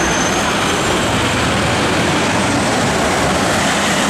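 Steady road traffic noise: a B-double truck's engine as it turns across the intersection, with cars and a pickup passing close by.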